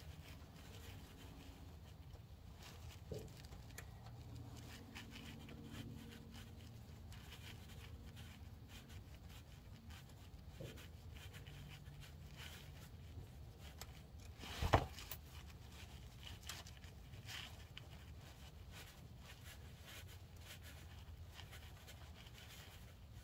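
Faint scraping and ticking of 10 mm bolts being turned out by hand from the oil filter cover of a 295cc Robin four-stroke engine, with one sharp knock about two-thirds of the way through.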